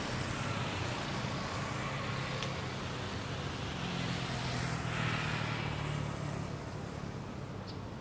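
Distant Airbus A330 jet engines on the runway roll: a steady rumble and hiss, swelling slightly about five seconds in.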